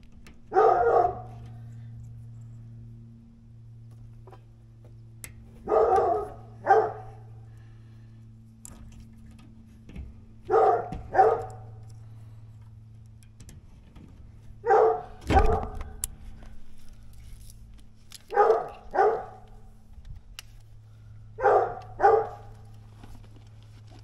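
A dog barking: a single bark, then five pairs of barks spaced about four seconds apart.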